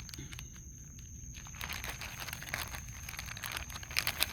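Wild raccoons eating pecans and cheese puffs up close: a fast, busy run of small crunching and crackling sounds that starts about a second and a half in and grows denser toward the end.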